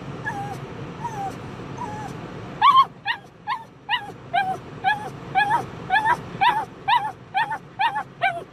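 Pug whining: a few soft whines, then from about two and a half seconds in a fast, steady run of short, high-pitched whining yelps, two or three a second.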